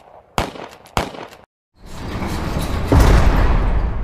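Cinematic intro sound effects: two sharp cracks in the first second, then after a brief silence a rushing swell that builds to a heavy low boom about three seconds in and slowly fades.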